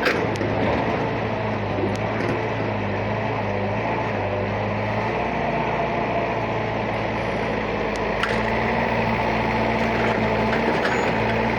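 Heavy diesel engine running steadily, as of an excavator, with a few light clicks over it.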